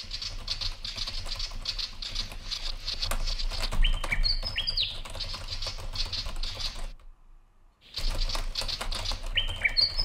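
Rapid clicking of a computer keyboard being typed on, mixed with high chattering bird chirps and a few quick whistled notes. It stops about seven seconds in and starts again a second later.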